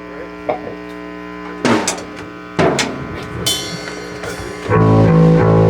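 Live rock band on stage: amplifier hum with a few loose drum hits, two of them loud, then the full band of electric guitar, bass guitar and drums starts playing loudly near the end.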